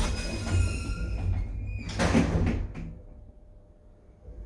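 Automatic sliding doors of a WDE elevator car closing. There is a rumble, and the loudest noise comes about two seconds in as the doors shut; after that it goes much quieter, with a faint knock near the end.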